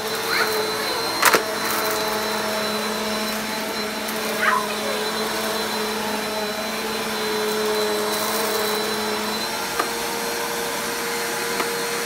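Bissell bagless upright vacuum running on carpet: a steady motor whine over the rush of suction, with a sharp crack about a second in as something is pulled up.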